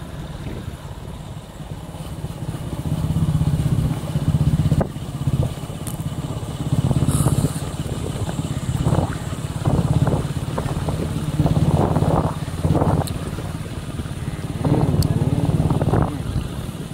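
Motorcycle engine running while being ridden, heard from the rider's seat, its level swelling and dropping several times.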